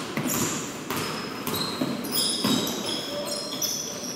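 Basketball game play on a hardwood court: the ball bouncing, with short high squeaks of sneakers coming and going.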